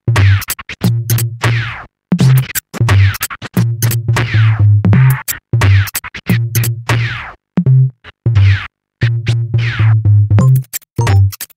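Electronic background music with a choppy bass beat, sharp clicks and repeated falling swoops.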